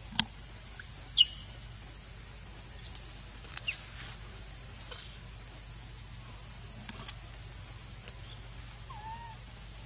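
A macaque giving a few brief, high squeaks, the loudest a quick falling chirp about a second in, with a sharp click just before it. A steady high insect hum runs underneath.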